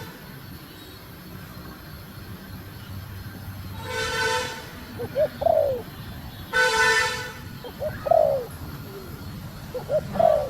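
Female spotted dove cooing: short, low, falling coo notes in little groups about five, eight and ten seconds in. Two buzzy, horn-like tones, each under a second, sound at about four and seven seconds.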